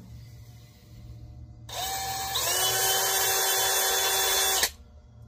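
Cordless drill with a twist bit drilling out a small brass fitting held in the hand. It starts a little under two seconds in, rises to a higher, steady speed half a second later, runs for about two seconds and stops abruptly.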